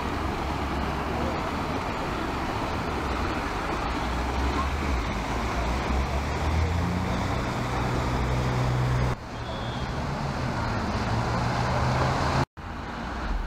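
Fountain jets splashing into a stone basin over steady street traffic. About six seconds in, a vehicle engine's low hum rises in pitch for a few seconds. The sound cuts out for an instant near the end.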